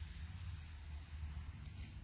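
Faint crinkling of a clear plastic carrier film being peeled slowly off a freshly heat-pressed transfer on a t-shirt, over a steady low hum.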